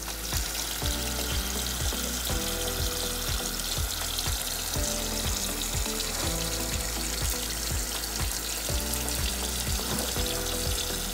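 Kitchen faucet running a thin stream into a pot of crawfish and water, a steady splashing hiss, over background music with a steady beat.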